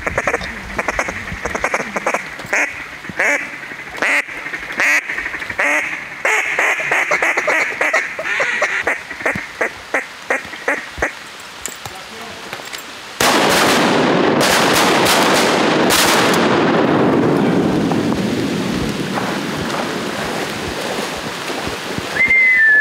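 Duck call blown in a rhythmic run of mallard quacks that speeds up and fades over the first ten seconds or so. About thirteen seconds in, a loud steady hiss of heavy rain on the trees and floodwater sets in abruptly and keeps on.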